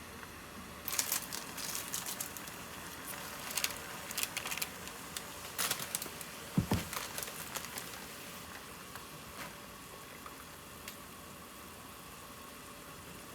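Handling noises: crinkling and light clicks and taps for the first several seconds, with a soft thump about six and a half seconds in, then only a steady low hiss with a few faint ticks.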